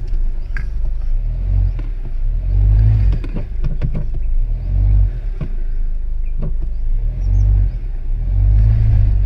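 Low, uneven rumble inside the cabin of a Tata Safari SUV driving over a rough, stony dirt track, with several sharp knocks and thuds as the body and suspension jolt over the bumps, most of them in the middle.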